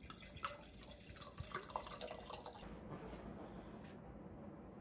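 White wine poured from a bottle into a large glass wine glass, splashing and gurgling for about the first three seconds as the glass fills, then fading to quiet.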